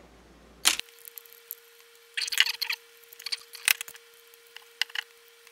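Hands handling small power-supply parts and a screwdriver: scattered clicks and short bursts of rattling and scraping, with one sharp click under a second in. A faint steady tone starts about a second in.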